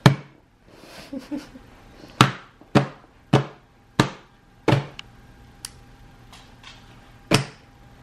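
A toddler slapping her open hands on a plastic high-chair tray covered with a placemat. About a dozen slaps of varying strength, the loudest a quick run of five between about two and five seconds in, with another near the end.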